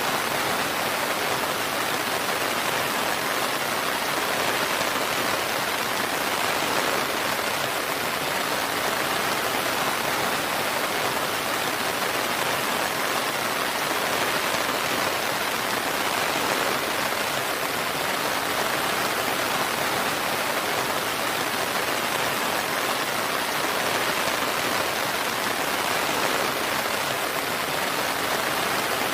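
Steady, even rain falling, a constant hiss of drops with no thunder or separate impacts.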